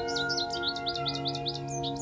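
Calm background music of steady held chords, with a bird singing over it in a fast run of short chirps, about seven a second, each sliding down in pitch.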